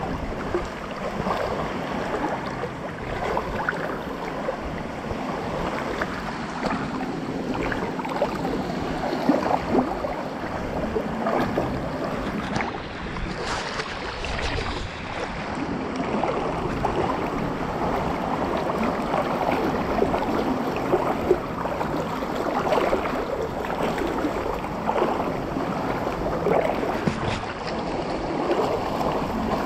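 Seawater sloshing and splashing close to the microphone as waves wash in, with wind on the microphone.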